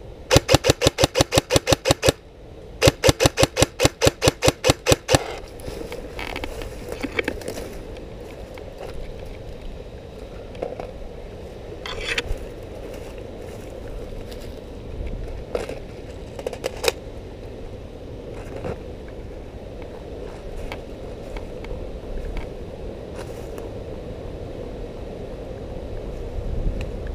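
Airsoft electric rifle firing two bursts of rapid shots, about seven a second, the first lasting about two seconds and the second, after a short pause, about two and a half. Scattered faint clicks and knocks follow.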